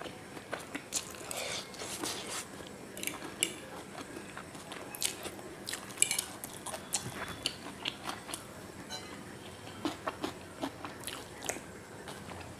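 A person chewing a mouthful of chow mein noodles: irregular short mouth clicks and chewing sounds, with no words.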